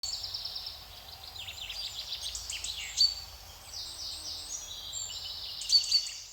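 Songbirds singing outdoors: many overlapping high chirps, rapid trills and short falling notes, over a faint steady background hum.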